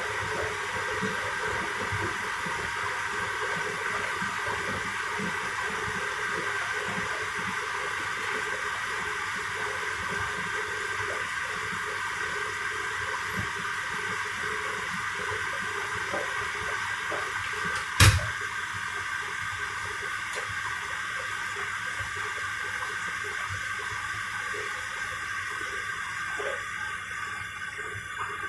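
Washer-dryers early in their wash cycles, water hissing steadily into the drums as they fill. One sharp click about eighteen seconds in.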